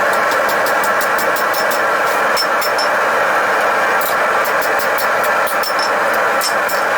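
Forge running, a steady rushing noise, with many short, sharp clicks scattered over it, several a second.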